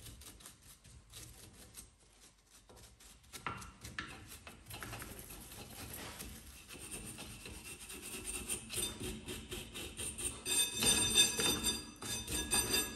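Repeated hand rubbing and scraping strokes on a metal wheel bearing as it is cleaned out. The strokes start faint and grow louder, with a squeaky ringing edge over the last few seconds.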